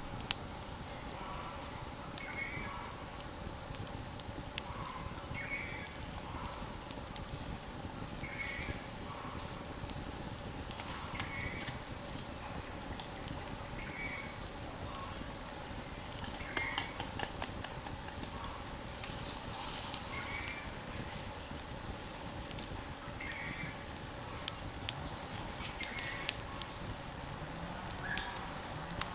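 Steady high insect trill, probably crickets, with a short call repeating every two to three seconds and a few sharp clicks over a low even background hiss.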